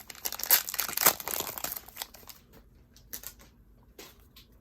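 Waxed-paper wrapper of a 1990 Skybox basketball wax pack crinkling and tearing as it is ripped open, busy for the first two seconds. It then drops to a few light rustles.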